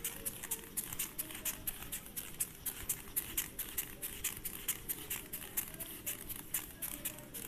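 Handheld eraser wiping a whiteboard in quick back-and-forth strokes, a steady run of short swishes several times a second.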